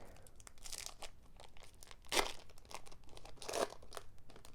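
Foil Pokémon card booster pack being crinkled and torn open, with many small crackles and two louder rips, about two seconds in and again near three and a half seconds.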